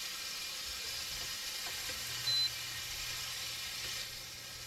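Meat frying in a pan on an induction cooktop, a steady sizzle. A single short, high electronic beep about two seconds in, over a low hum that comes in about a second in.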